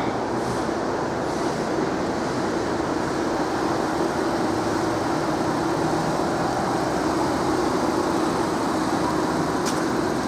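Fire brigade pump running steadily while it pumps floodwater out of a petrol station: a constant hum over a steady rushing noise.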